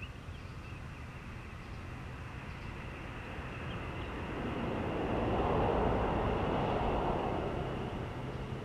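A vehicle passing out of sight, its noise swelling to a peak about six seconds in and then fading, over a steady outdoor hum with a faint high-pitched drone.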